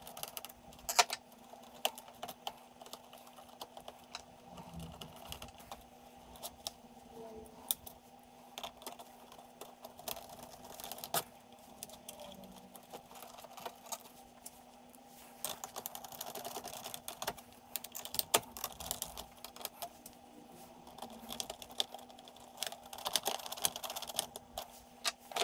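Scattered clicks, taps and light rattles of an Amstrad CPC464's plastic case and sheet-metal keyboard plate being handled and fitted back together during reassembly.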